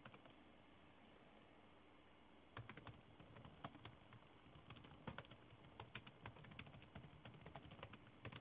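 Computer keyboard being typed on: faint, quick, irregular key clicks starting about two and a half seconds in.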